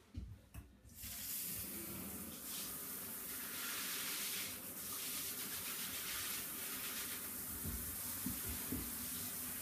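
A few knocks as the shower fittings are handled, then about a second in a handheld shower is turned on at the thermostatic mixer and water sprays steadily from the shower head.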